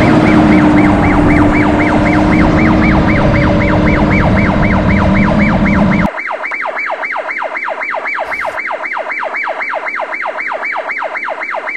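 Toy police car's electronic siren warbling fast, about five rising-and-falling sweeps a second. For the first half it is mixed with a loud rushing noise and a steady hum, which stop suddenly about six seconds in, leaving the siren alone and quieter.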